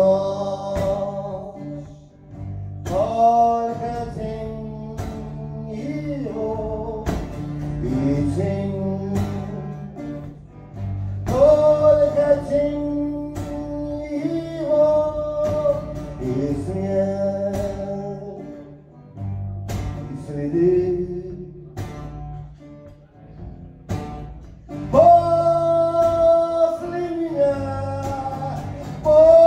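A man singing long held notes while strumming an acoustic guitar, played live through a PA. The phrases break off briefly every few seconds, and the singing gets louder and higher about 25 seconds in.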